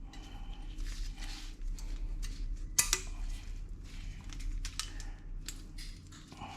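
Thin steel brake pad retaining clip being pressed and snapped into a front brake caliper bracket. Light metal clicks and scraping, with one sharp click about three seconds in.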